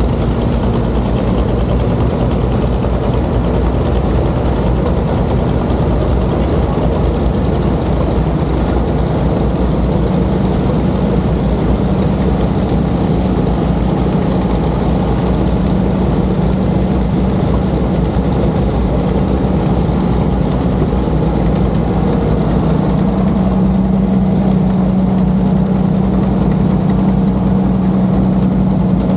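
A heavy engine idling steadily, a low even hum that grows a little stronger near the end.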